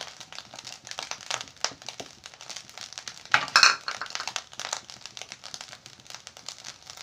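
Cashews and raisins tipped from a small bowl onto fried rice in a pan, followed by light scattered clicking and crackling from the pan, with one short loud rustling burst about three and a half seconds in.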